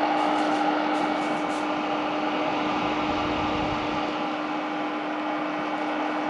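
Small USB-powered exhaust fan running on high: a steady hum with an even rush of air.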